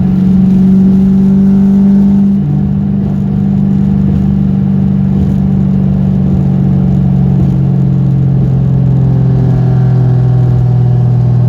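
1998 Mustang Cobra's 4.6-litre DOHC V8 running steadily while the car is driven; its note drops abruptly about two and a half seconds in, then holds steady.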